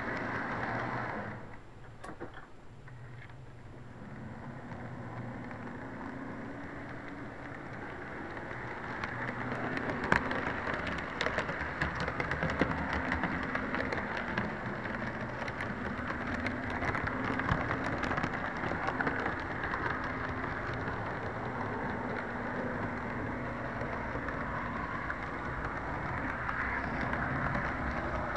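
HO-scale model train running on its track, heard through a cheap keychain camera's tinny microphone riding on the train: a steady rattling clatter with sharp clicks now and then and a faint low hum. It dips quieter for a couple of seconds about a second in, then builds back up.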